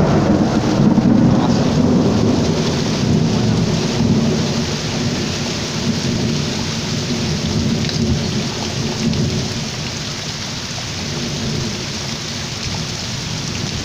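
A long roll of thunder, loudest in the first few seconds and slowly dying away, over steady rain.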